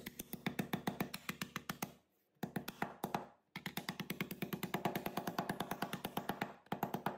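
A rubber mallet tapping the tabs of a laser-cut plywood panel down into their slots: a quick, even run of light taps, about eight a second, broken by short pauses about two seconds in, a little after three seconds, and near the end.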